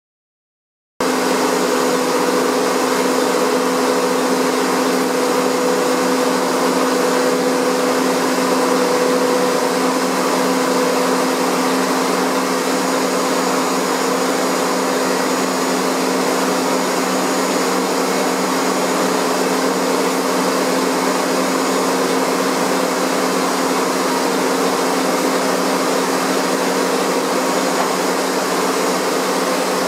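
Steady drone of factory machinery running, a constant rushing noise with a low hum and a few steady tones, starting about a second in.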